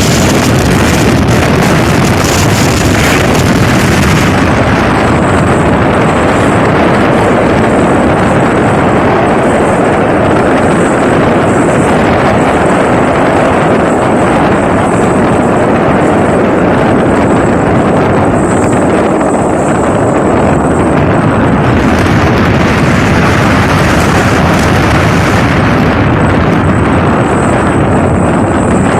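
Motorboat running at speed: the engine and rushing water under loud, steady wind buffeting on the microphone.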